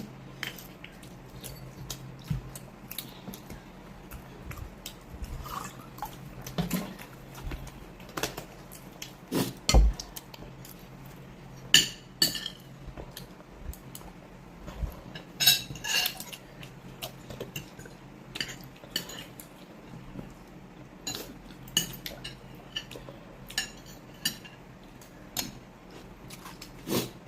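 Spoons clinking and scraping against plates and soup bowls while eating, in irregular sharp clinks a second or two apart, with a few louder knocks.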